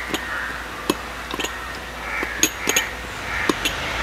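Plastic muddler crushing passion fruit pulp and lime in glass tumblers. It gives irregular knocks and clinks against the glass, roughly two a second.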